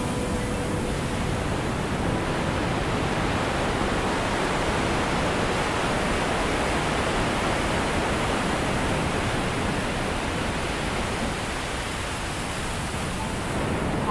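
Steady, even rushing noise with no distinct events or tones, swelling slightly in the middle and easing a little near the end.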